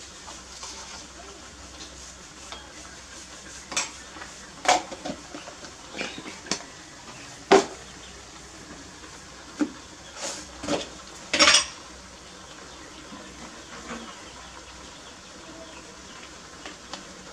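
Kitchen handling sounds: a scattered run of short clinks and knocks from plastic containers, bottles and a metal spoon being picked up, opened and set down on a countertop, thickest through the middle.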